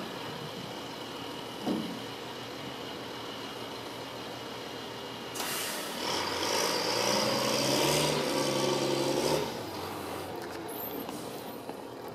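Freightliner Condor recycling truck's diesel engine idling, with a short clunk about two seconds in. About halfway through a sudden hiss of air, the air brakes releasing, and then the engine revs up and climbs in pitch as the truck pulls away, settling back after a few seconds.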